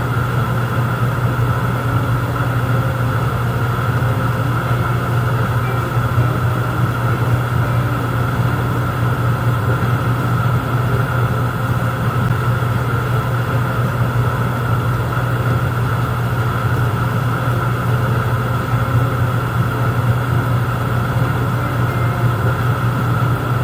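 A steady, unchanging low mechanical hum, like a motor or engine running without pause.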